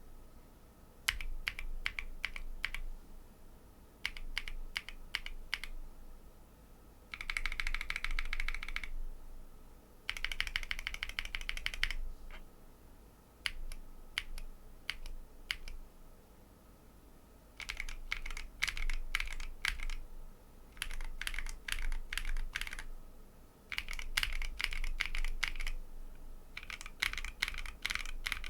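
Mechanical keyboard typing on lubed Tecsee Coral tactile switches with ASA-profile double-shot PBT keycaps, on a Bakeneko 60 with an FR4 plate. Stretches of slow, single keypresses alternate with fast runs of typing a few seconds long.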